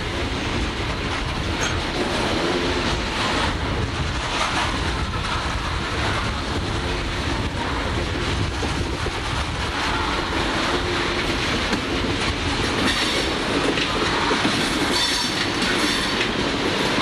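Freight cars of a CSX coal train rolling past close by: a steady rumble and clatter of steel wheels on the rails. Faint high wheel squeal comes in near the end as the cars take the curve.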